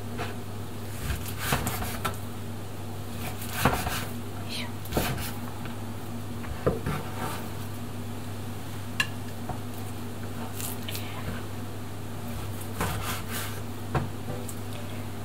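A kitchen knife cuts raw deer meat into cubes on a wooden cutting board, giving scattered knocks and taps of the blade on the board, one every second or two. A steady low hum runs underneath.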